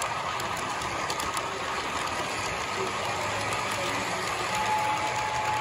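Model freight train rolling past close by: a steady rolling noise of wheels on the rails, with a few light clicks in the first second or so.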